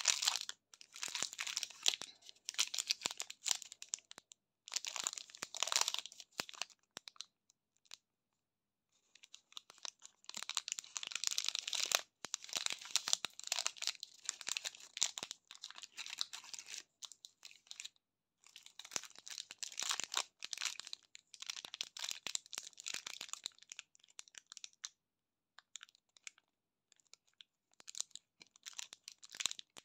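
Shiny printed candy wrappers crinkling and tearing as they are handled and opened, in several spells of dense rustling with short pauses between, thinning out to scattered crackles near the end.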